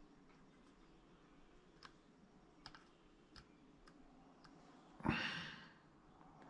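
Faint, scattered clicks and small taps of hands handling a clay figure on a wax saddle and wooden form, then a louder scuffing knock about five seconds in that fades over about a second.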